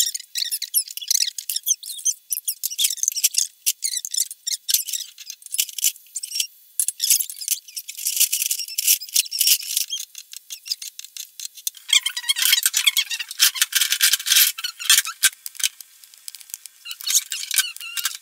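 A thin pancake frying in a hot pan, with a dense crackling sizzle. About twelve seconds in it gives way to a fuller clatter.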